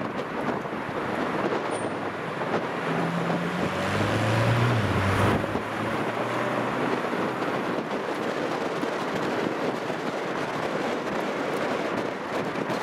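Steady road and wind noise from a car driving through town, with a low engine drone that swells for a couple of seconds around the middle; the Senna's own engine is not clearly heard.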